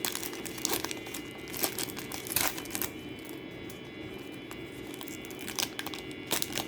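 An NBA Hoops trading-card pack wrapper being torn open and crinkled by hand, with irregular sharp crackles, a few louder tears standing out.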